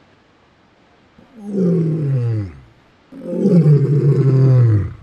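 Lion roaring twice, each roar sliding down in pitch; the second roar is longer and louder.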